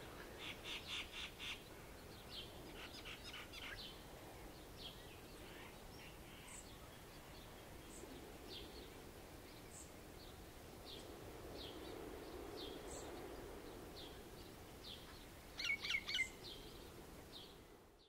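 Wild birds calling: quick runs of chirping notes and scattered single calls, with a louder burst of calls near the end. Underneath lies a faint low wash of surf that swells briefly about two-thirds of the way through.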